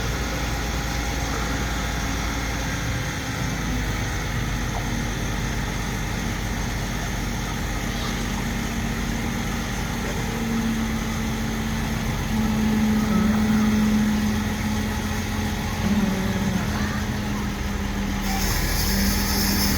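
Crane engine running steadily, its hum getting louder and shifting in pitch from about halfway through as it works the lift. A hiss comes in near the end.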